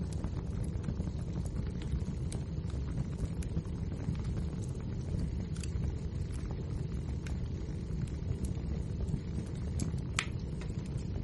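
Wood fire burning in a fireplace: a steady low rumble of the flames with scattered small crackles and pops, and one sharper pop near the end.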